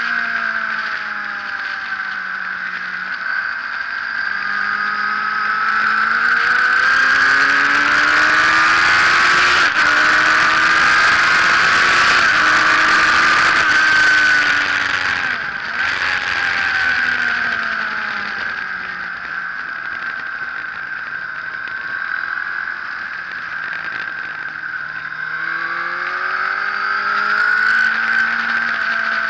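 Sport motorcycle engine heard from onboard during a track lap. It accelerates with rising pitch and a growing rush of wind to a peak around the middle, drops in pitch as the bike slows from about 15 seconds in, and climbs again near the end.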